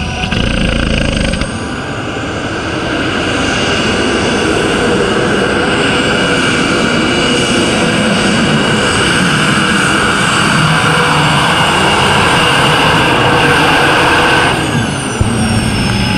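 Turbine engine of a modified pulling tractor running at full power, pulling the brake sled, with a steady high whine over a loud rush. Near the end the whine slides down in pitch.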